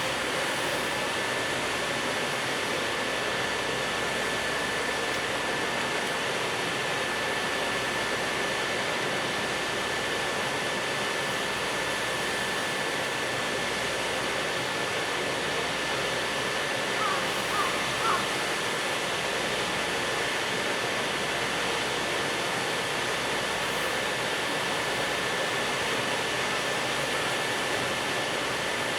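Steady mechanical noise of a freight train hauled by a JR Freight EF510 electric locomotive, with a thin, constant high whine over it. A few brief chirps come in about two-thirds of the way through.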